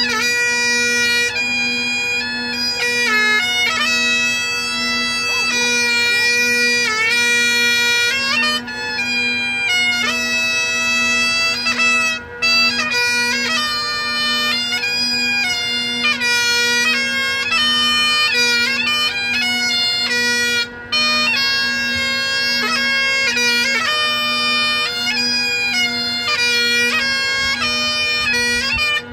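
Bagpipes playing a slow tune: the chanter's melody moves from note to note over a steady, unbroken drone.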